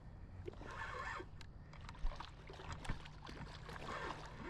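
Faint sloshing of creek water with a few light knocks and clicks as a small hooked carp is brought in and handled at the water's edge.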